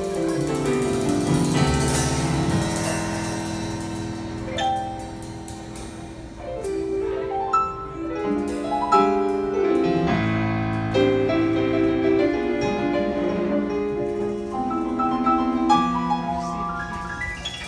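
Live jazz trio playing a bossa nova ballad: piano chords and melody over upright bass notes, with soft cymbal strokes from the drum kit.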